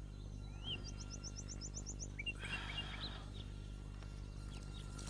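Small birds chirping: a rising chirp, then a quick run of about eight high chirps, then scattered short calls, over a steady low hum.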